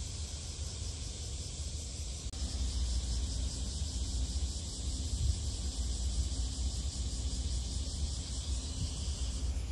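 Harbour-shore ambience: a steady low rumble under a high, finely pulsing insect drone. About two seconds in, the sound shifts and a faint steady hum comes in.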